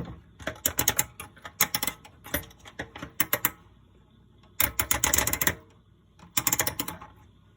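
Small hard mechanical clicks coming in quick bursts of several clicks each, about seven bursts with short pauses between them, the longest near the middle.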